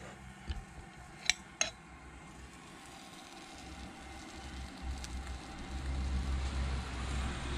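Hungarian hot peppers starting to sizzle in bacon grease in a frying pan, the sizzle swelling louder over the last few seconds. Two sharp clinks about a second and a half in.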